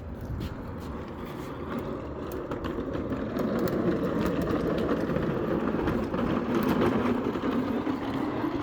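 An engine running with a steady low hum, growing louder over the first few seconds and then holding.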